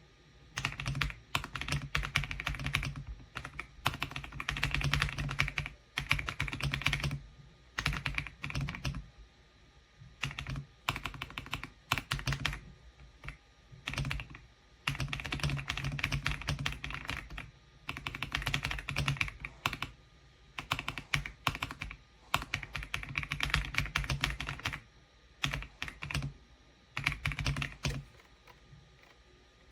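Typing on an EPOMAKER x Aula F99 gasket-mounted mechanical keyboard with Graywood V3 linear switches: runs of rapid key clacks in bursts of a second or a few seconds, broken by short pauses.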